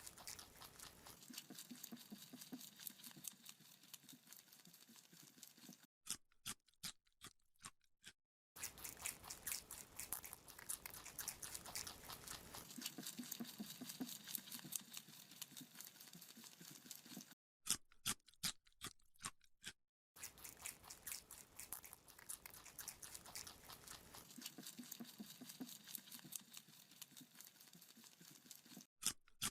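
Rabbit chewing a raw carrot: fast, steady crunching, broken twice by a couple of seconds of a few separate crunches with silence between them.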